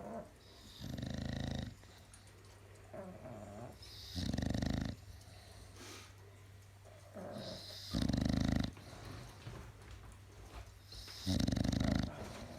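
Flat-faced dog snoring in its sleep: four loud snores, each under a second, about every three and a half seconds, with softer breaths between. Such snoring is typical of the narrow airways of short-nosed breeds like bulldogs and pugs.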